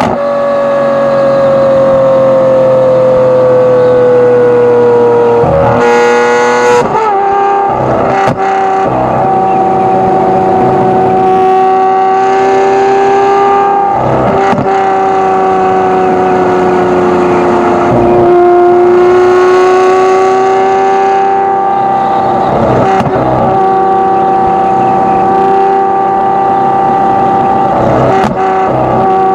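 Lamborghini Aventador SVJ's V12 running through a Gintani aftermarket exhaust at a fairly steady cruise. Its pitch sinks slowly, jumps up with a gear change about six to seven seconds in, then holds and drifts gently, with a few brief breaks in the drone.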